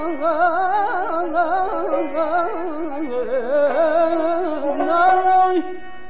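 Azerbaijani mugham music: one melodic line full of fast quivering ornaments, dropping lower about halfway through, then settling onto longer held notes near the end.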